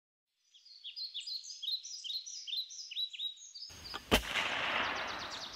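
Songbirds chirping in quick, repeated downward-sweeping notes. About three and a half seconds in, a rushing whoosh rises into a single sharp gunshot, the loudest sound, followed by a noisy tail that fades out.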